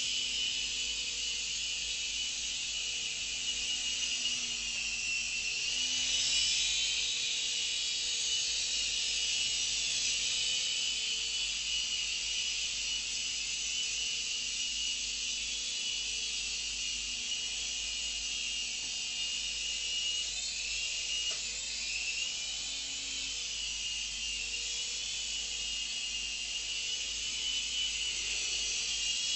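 Syma S110G mini RC helicopter in flight: a steady high-pitched whine from its small electric motors and coaxial rotors. The pitch wavers up and down as the throttle changes, most noticeably about six seconds in and again a little after twenty seconds.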